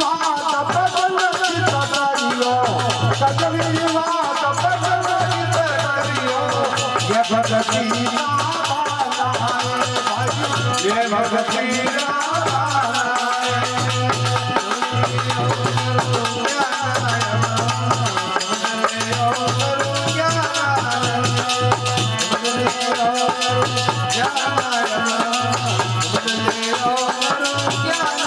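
Devotional bhajan being performed: a singing voice with instrumental accompaniment over steady rattling hand percussion.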